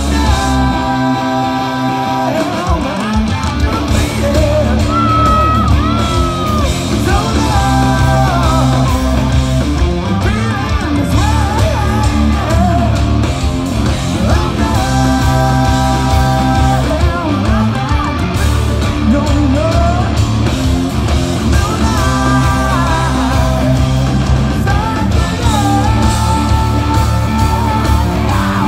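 A rock band playing live through a PA, with electric guitars, bass and drums under sung vocals, heard loud from within the crowd.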